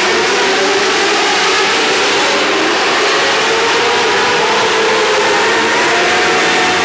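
A field of 600cc winged micro sprint cars racing, their high-revving engines running continuously as several overlapping engine notes rise and fall together, echoing inside an indoor arena.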